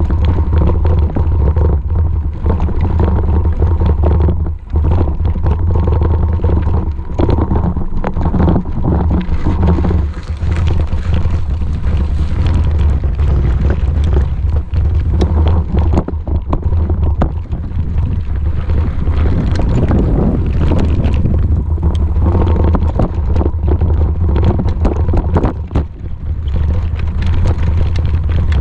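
Heavy wind buffeting a small action camera's microphone while it moves, a loud, steady low rumble, with frequent small clicks and rattles throughout.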